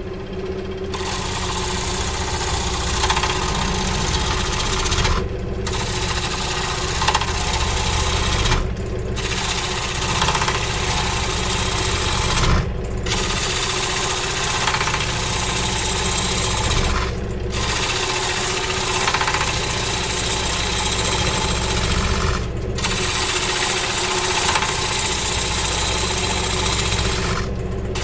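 A power tool working willow wood: a steady motor sound under a loud hissing cutting noise that breaks off briefly about every four to five seconds while the motor keeps running.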